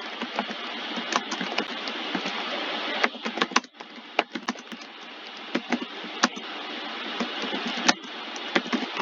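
Irregular clicking of computer keyboard keys and mouse buttons over a steady hiss that slowly grows louder.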